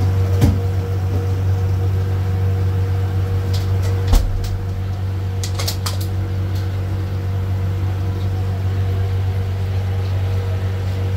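Steady low hum of commercial kitchen machinery, with a knock about four seconds in and a few light clicks just after.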